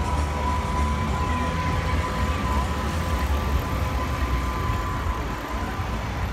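Busy city street traffic: a steady low rumble of vehicle engines with a thin, steady whine running through it, while a tram passes close by.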